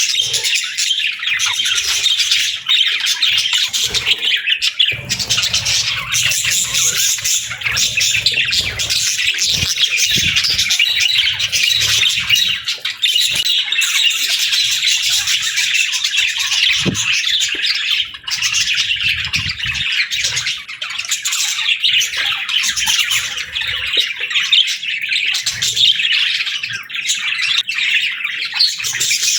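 A flock of budgerigars chattering and chirping continuously, with many overlapping warbles and squawks.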